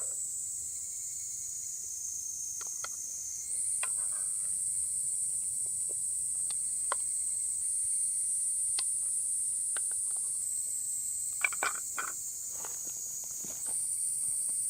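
Insects singing in a steady high-pitched chorus that steps louder and softer a few times, with scattered sharp clicks and ticks over it, several close together near the end.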